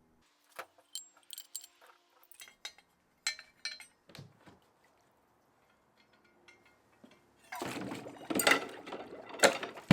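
Small metal parts clinking and clicking as they are handled. Near the end comes a louder stretch of rattling and scraping.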